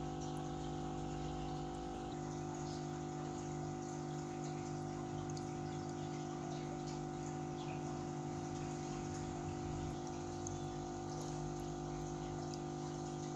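Marine aquarium's water pump running with a steady hum, with water moving and faint scattered ticks over it.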